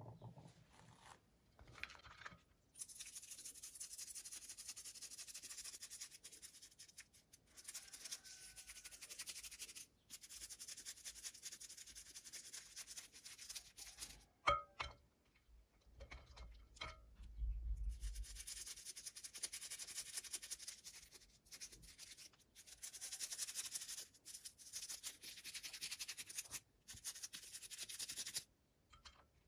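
Toy packaging being handled and opened: long stretches of rubbing and scraping, like tape or plastic being peeled or cut, broken by a few short clicks and taps around the middle and a soft low thump.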